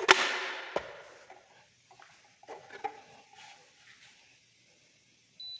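Two sharp clicks, then faint handling noises, and near the end a short high electronic beep.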